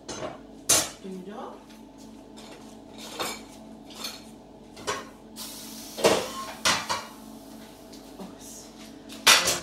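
Crockery and metal clinking and knocking as plates, a cast-metal trivet and a pan are handled and set down on a granite worktop: about eight separate knocks, the sharpest near the start and near the end. A steady hum runs underneath.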